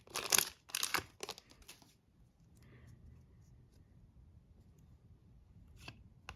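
Hockey trading cards being slid and flipped in the hands, with a few quick papery rustles in the first two seconds. It then goes quiet, with a couple of light clicks near the end.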